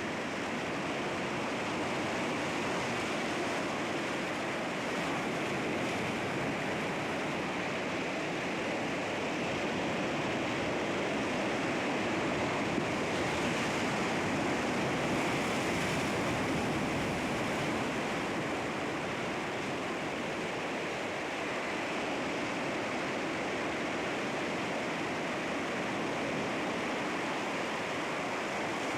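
Sea waves washing and breaking against rocks, a continuous rushing surf that swells slightly about halfway through.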